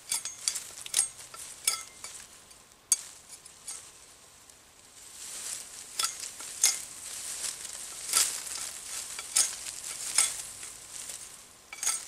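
Twigs snapping and crackling and leaves rustling as a long, thin sapling pole is handled and worked through leafy brush. Sharp snaps come in clusters: a few in the first two seconds, one about three seconds in, a busy stretch from about six to ten seconds, and another near the end.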